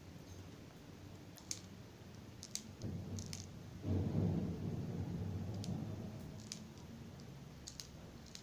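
Light scattered clicks as plastic BBs are loaded one by one into an airsoft pistol's magazine, over a dull rubbing handling noise that is loudest about four seconds in.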